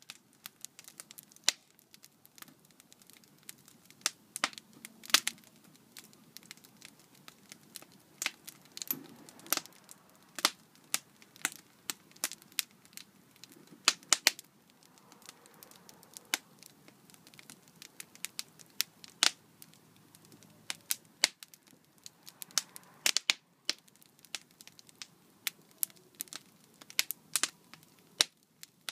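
Wood fire burning in a metal mesh-screened chiminea, crackling with irregular sharp pops, several a second at uneven spacing.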